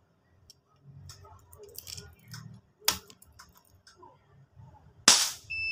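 A few light clicks as the air rifle is handled and loaded, then about five seconds in a single loud shot from an FX M3 PCP air rifle with a power block, firing at over 1,000 fps. Right after it, near the end, a chronograph starts a steady electronic beep as it registers the shot.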